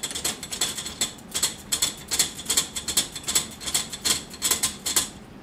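Bowstring serving jig turned by hand around the string, ticking and clicking irregularly about three times a second as it revolves.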